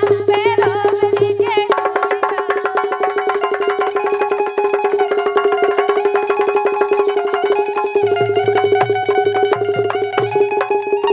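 Indian folk music: a woman's sung line ends about two seconds in, then the band plays on alone, with one note held steady underneath, a keyed or plucked string melody and quick hand-drum beats.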